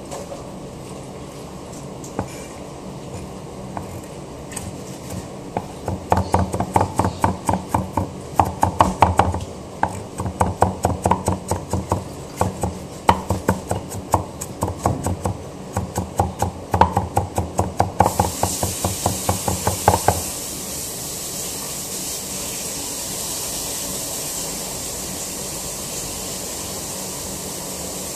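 A kitchen knife chopping on a cutting board: scattered knocks at first, then a steady run of strokes about three a second from about six seconds in, stopping about twenty seconds in. A steady high hiss comes in shortly before the chopping stops and carries on.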